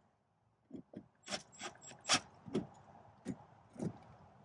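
Faint, uneven clicks and light knocks, about one or two a second, from hand work fastening a plastic mudflap to a car's wheel arch.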